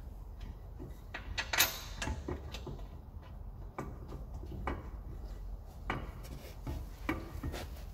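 Scattered metallic clinks and knocks as the front wheel hub's mounting bolts are handled and put back in by hand, with the loudest clank about one and a half seconds in.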